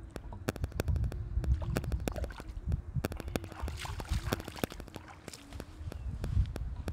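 Rapid, irregular runs of sharp clicks over a low rumble.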